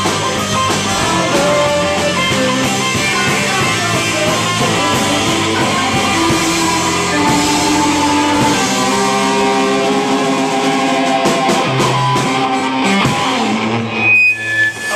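Live rock band playing with electric guitars, drum kit and saxophone. The band stops near the end and a voice calls out.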